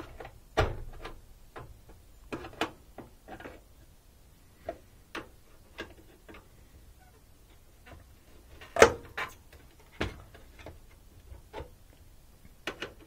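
Scattered clicks and knocks of a screwdriver prying at the last catch of a washing machine's cabinet panel, the panel rattling as it works loose. The loudest knock comes just under 9 seconds in, with another at about 10 seconds.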